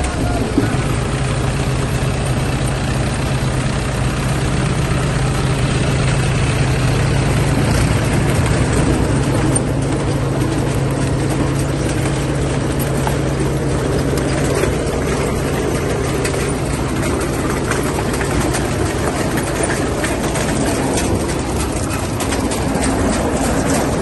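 Diesel tractor engine running steadily as it powers a potato harvester, with the rattle of the harvester's moving conveyor webs and chains.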